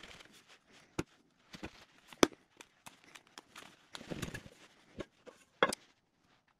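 Hands knocking and pressing on an upturned metal tin to free a cast disc of solid crayon wax: several sharp knocks, the loudest a little over two seconds in, with rubbing and scraping of hands on the tin around four seconds in.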